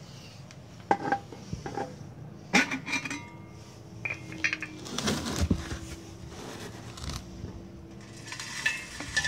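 Large metal beer can with a wire-mesh tube inside, handled and set down on stone paving: a few sharp metallic knocks and clanks, one ringing on briefly for a couple of seconds. Near the end comes a dry rustle of coarse sawdust flakes being scooped into the can.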